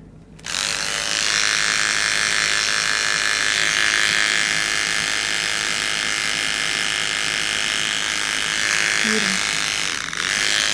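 Electric hair clippers buzzing steadily as they shave fur from around a sugar glider's leg wound, before the wound is cleaned and stitched. The buzz starts about half a second in and dips briefly near the end.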